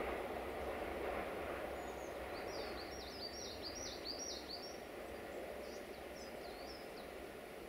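Small songbirds chirping in quick runs of high, sharply falling notes, busiest a few seconds in. Behind them is a steady outdoor background noise that slowly fades away.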